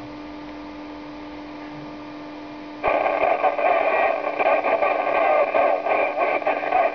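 VHF FM amateur radio receiver tuned to the ISS downlink on 145.800 MHz, heard through its speaker: a faint steady hum, then about three seconds in loud, fluttering static cuts in abruptly and carries on, the noise of a receiver with no usable voice signal.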